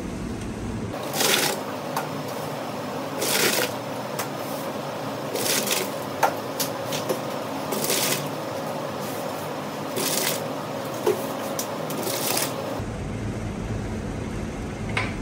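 Tomatoes scooped in batches out of a large aluminium pot of water with a plastic basket: a short splash and rush of draining water about every two seconds, with small knocks of tomatoes and basket against the pot between them.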